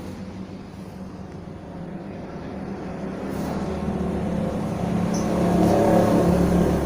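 A motor vehicle's engine running with a steady hum, growing louder over a few seconds and peaking near the end, as if passing close by.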